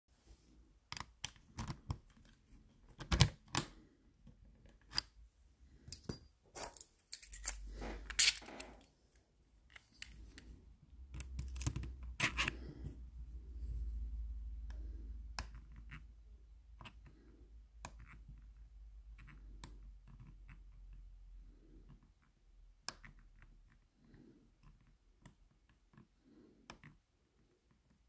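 Small metallic clicks and scrapes of a disc-detainer pick working the rotating discs of an Abloy Classic cutaway lock, coming at irregular intervals. The loudest clicks come about three and eight seconds in, and a low handling rumble runs under the middle part.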